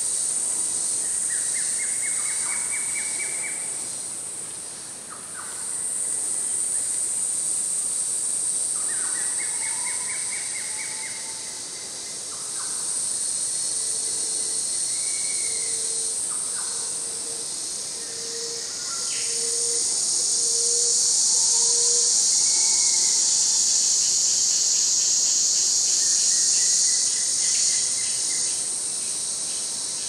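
Tropical rainforest ambience: a steady high-pitched insect chorus, the loudest sound, with bird calls over it. These include several rising, trilled calls and, in the middle, a run of about seven short, low hoots a little under a second apart.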